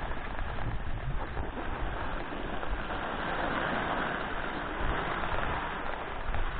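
Skis sliding and scraping over groomed snow, with wind rushing over the microphone. The hiss swells for a couple of seconds about halfway through.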